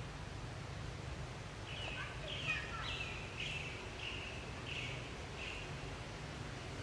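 A bird calling: a run of about seven short high chirps, each falling slightly in pitch, roughly two a second, starting a couple of seconds in. Beneath it is a low steady background hum.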